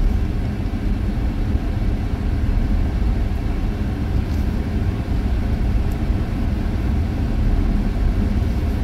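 Vehicle driving on an unpaved road, heard from inside the cab: a steady low rumble of tyre and engine noise, with a couple of faint ticks partway through.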